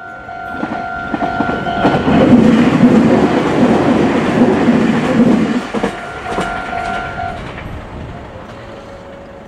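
Meitetsu electric train passing close by on a curved track, its wheels rolling and clacking over the rail joints. It is loudest from about two to five seconds in, then fades. A steady high tone sounds at the start and again around six to seven seconds.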